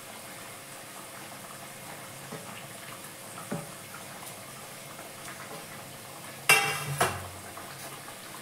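Gravy simmering in an aluminium kadhai on a gas stove, a steady low bubbling hiss, with small soft plops as pieces of bottle-gourd paneer are dropped in. Near the end come two loud ringing metal clanks on the pan, close together.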